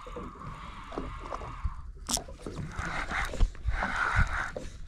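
Conventional fishing reel being cranked in short bursts of winding noise, over a steady low rumble of wind and boat noise; a sharp click about two seconds in.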